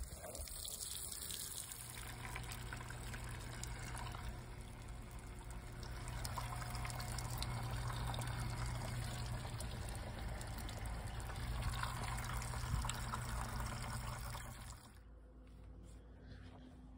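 Water running steadily, with a low steady hum under it; both stop about fifteen seconds in.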